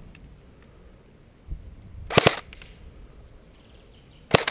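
Airsoft electric rifle firing: a quick pair of shots about two seconds in and another pair near the end, each a sharp crack.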